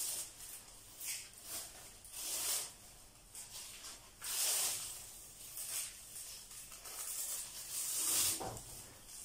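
Thin black plastic strips rustling and crinkling in a series of short bursts as they are handled and tied onto a line.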